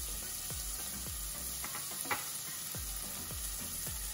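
Chopped onion frying in hot oil in a stainless steel pot, a steady sizzle. A single small click comes about two seconds in.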